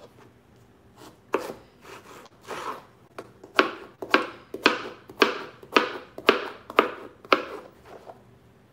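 Kitchen knife dicing mango on a cutting board: a few scattered cuts, then a steady run of chops about two a second from around three and a half seconds in.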